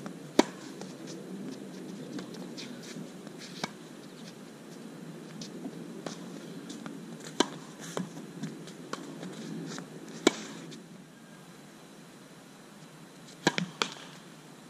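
Tennis ball being hit by rackets and bouncing on a hard court: sharp pops a few seconds apart, one of the loudest about ten seconds in as a serve is struck, and a quick run of three near the end, over a faint low background noise.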